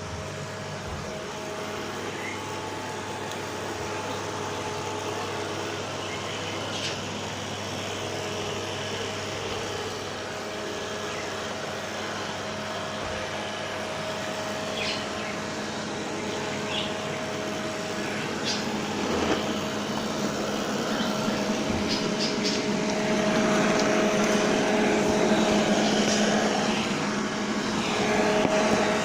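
Vacuum cleaner motor running steadily with a constant hum and whine, growing louder in the second half.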